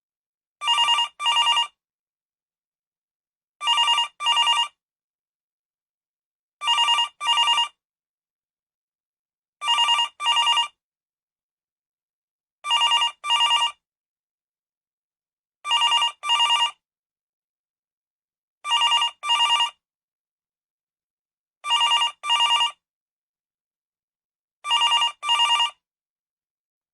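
Telephone ringing in a double-ring pattern: two short rings close together, the pair repeating about every three seconds, nine times, with silence in between.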